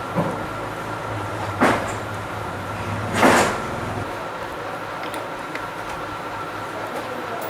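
Handling noise while an extra AC power cord is fitted to an opened CRT TV. There is a short knock at the start, a sharp click about one and a half seconds in, and a longer scrape about three seconds in, over a faint steady hum.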